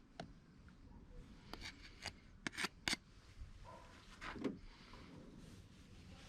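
Handling noises from hands at work: faint rustling, a quick run of sharp clicks and taps between about one and a half and three seconds in, then a softer scrape a little past four seconds.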